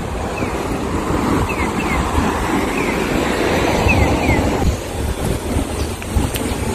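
Street ambience with wind rumbling on the microphone and road traffic, plus a few short, high, falling chirps in the first few seconds.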